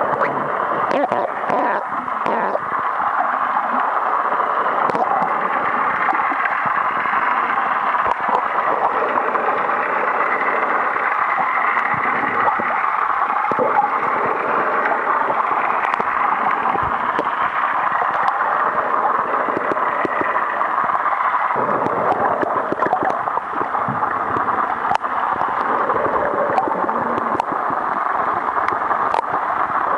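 Underwater noise heard through a submerged waterproof camera's microphone: a steady, muffled rushing of seawater, with scattered sharp clicks.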